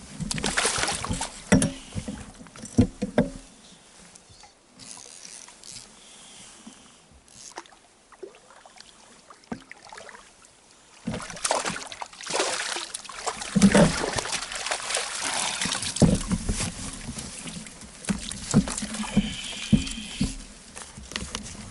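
An angler playing a fish on a fly rod from an inflatable pontoon boat: irregular rustles, knocks and water sounds. They are busiest for the first three seconds, go quieter, and pick up again about eleven seconds in.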